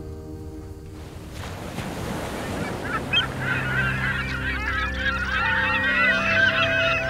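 A flock of seabirds calling over the sea: from about three seconds in, many short overlapping calls in a busy chorus. A rush of noise rises before them, from about a second in.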